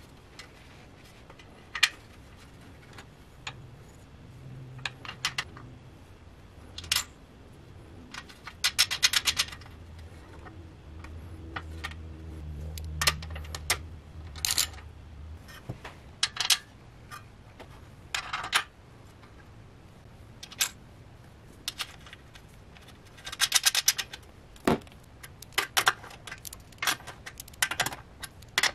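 Small socket ratchet clicking in quick runs while tightening the bolt of a metal pipe clamp on a propane stove's gas manifold, with single metallic clicks and taps between. The rapid runs come twice, about a third of the way in and again near the end.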